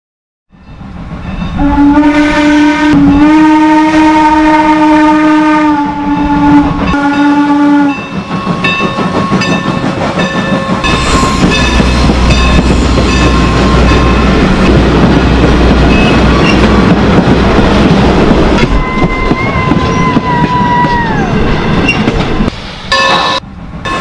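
Steam locomotive whistle blowing one long blast of about six seconds, then a steam-hauled passenger train rolling past with wheels clicking over the rail joints and a low rumble. Near the end a thin high squeal sounds for a couple of seconds and dips in pitch as it stops.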